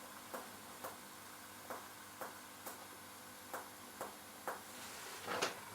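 Finger-on-finger percussion on a person's body: about eight faint, short taps of the striking finger on the pleximeter finger, in groups of two or three about half a second apart.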